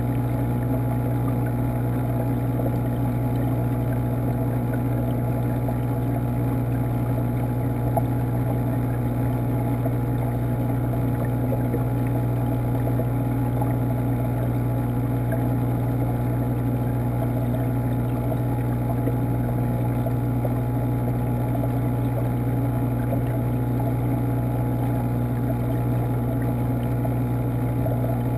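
Steady low hum of an aquarium water pump, heard underwater through the camera's housing inside the tank, with a soft even rush of moving water.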